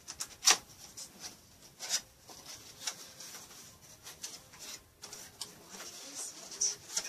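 A cardboard gift box being handled and opened: scraping and rustling of the packaging with scattered clicks and knocks, the sharpest about half a second in.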